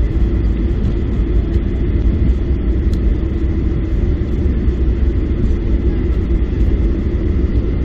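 Boeing 737-800 cabin noise while the airliner rolls on the ground after landing: a steady low rumble of its CFM56 engines and wheels, with a faint steady high whine.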